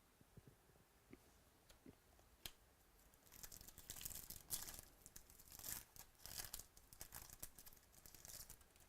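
A trading-card pack wrapper being torn open and crinkled: a few light clicks, then a run of tearing and rustling starting about three seconds in.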